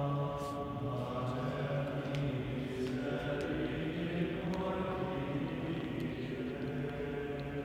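Male schola singing sacred music a cappella at vespers, the men's voices holding long, sustained notes that change pitch slowly.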